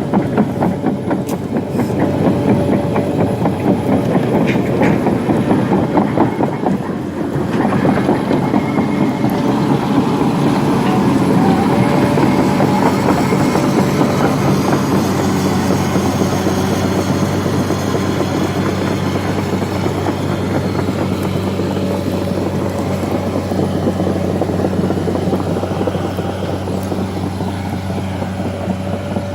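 Tracked excavator travelling slowly: its diesel engine runs steadily under a dense, rapid clanking of the tracks, busiest in the first several seconds and then evening out.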